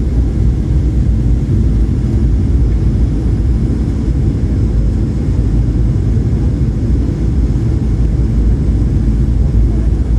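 Steady low rumble of a SpiceJet Boeing 737-800 heard from inside the passenger cabin, even in level with no surge or build-up.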